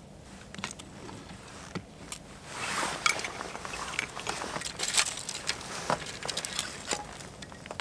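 Fatwood shavings on a bed of bark catching alight from a ferro rod spark and burning up: a small flame crackling with scattered sharp pops and snaps, busiest around five seconds in.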